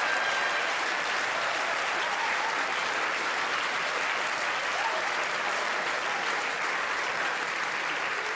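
A large audience applauding steadily in a hall.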